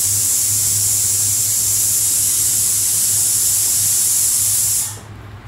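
Steady, loud high-pitched hiss that cuts off suddenly about five seconds in, leaving a faint low hum.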